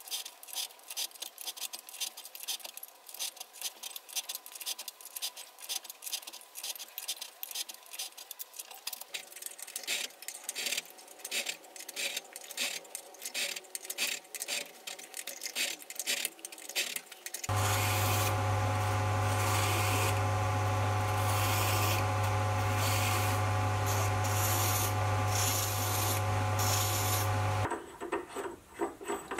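Mini lathe single-point cutting a thread in steel: a fast scratchy ticking of the tool in the cut over the faint hum of the lathe running. About 17 seconds in, a much louder steady motor hum starts suddenly and runs for about ten seconds before cutting off. Near the end, metal rubs on metal as the collet nut is screwed onto the fresh thread.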